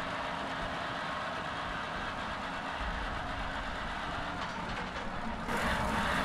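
Mk IV tank's engine running steadily with a low rumble. About five and a half seconds in it gets louder and brighter, as heard from inside the hull beside the belt-driven radiator fan.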